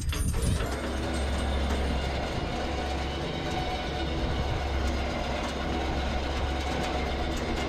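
A vehicle engine running steadily at low revs while the log is pulled, as a low, even drone.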